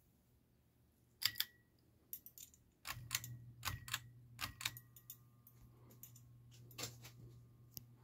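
SMC-made Harbor Breeze Carolina ML42LP ceiling fan: a few sharp clicks, then about three seconds in the motor starts with a low steady hum as the blades spin up, with scattered light clicks over it.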